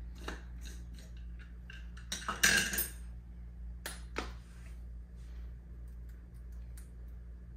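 Spoon and jar clinks and scrapes against a ceramic bowl as green seasoning is spooned out onto fish fillets, a scatter of short knocks with one louder scraping rattle about two and a half seconds in. A steady low hum runs underneath.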